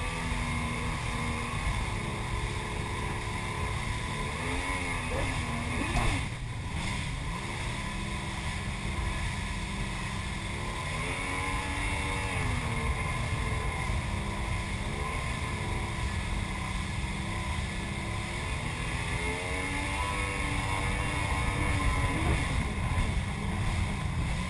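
Jet ski engine running steadily at speed, with the rush of water spray and wind.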